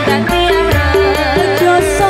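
Woman singing a dangdut song live into a microphone with amplified band accompaniment. Her held notes waver with vibrato above a repeating instrumental note and a bass line.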